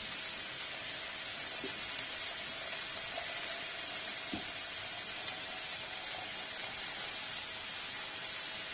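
Sliced leeks and shallots sizzling steadily in olive oil in a frying pan as they soften.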